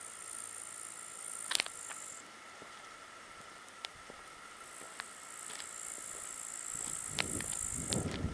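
Meadow insects stridulating in a high, hissing buzz that runs for about two seconds, stops, then starts again about halfway through, with a few sharp clicks scattered over it. Low rustling noise builds near the end.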